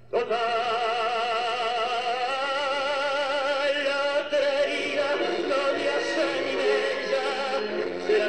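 Tango music. A long note held with vibrato for about four seconds, then the melody moves on.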